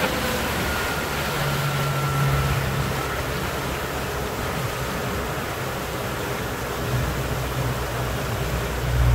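Fishing boat's engine running with a low hum under a steady rush of water and wind along the hull as the boat slows on its approach to the jetty.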